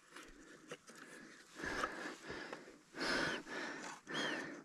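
A man breathing heavily in several breaths about a second apart, with a few light clicks as a plastic trail camera case is handled and opened.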